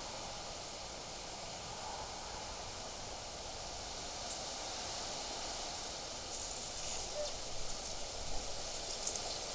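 Wind blowing steadily through vegetation, with leaves rustling; from about six seconds in, a run of short, crackly rustles and ticks comes over the steady wind.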